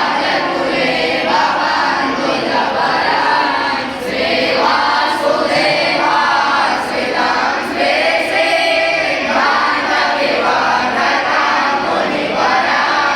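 A group of young boys chanting Sanskrit verses together in unison, in a continuous run of sung phrases with short breaks for breath.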